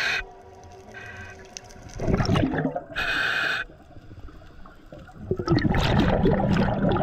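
Scuba diver breathing underwater through a regulator. Short hisses of inhaling through the demand valve alternate with rough, gurgling bursts of exhaled bubbles; the longest bubble burst starts about five seconds in.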